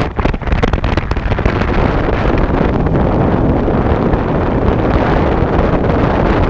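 Wind buffeting the microphone while moving at riding speed: a loud, steady rushing noise, with a few sharp knocks in the first second.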